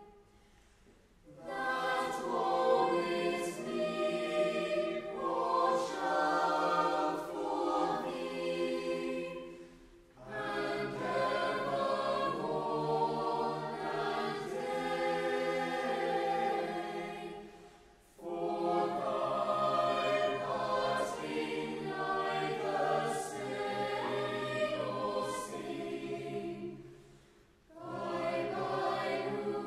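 Mixed choir of teenage boys and girls singing a carol in long phrases, with short breaks for breath about a second in, about ten seconds in, about eighteen seconds in and near the end.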